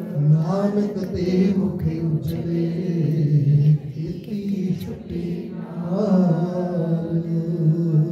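A man's voice chanting Sikh scripture in long, held notes, with a brief break about four seconds in.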